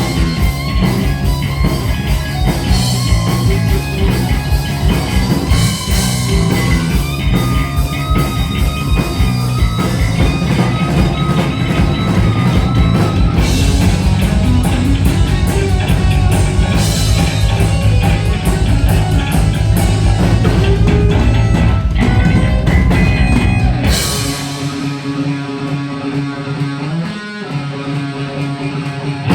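Heavy metal band playing live: distorted electric guitars, bass and drum kit. Near the end the drums and bass drop out, leaving sustained guitar ringing on its own, until the full band comes back in.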